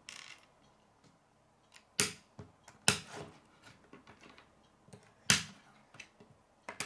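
K'nex plastic pieces clicking as connectors are pushed onto a rod and snapped together: four sharp snaps spaced over several seconds.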